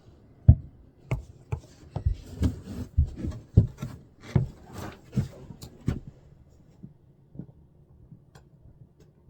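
Irregular knocks and rubbing of wooden objects being handled, about a dozen over five seconds, then only a few faint ticks.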